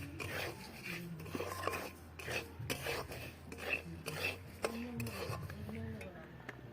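Roasted moong dal being stirred in a kadai with hot oil and spices: a utensil scrapes against the pan in repeated strokes.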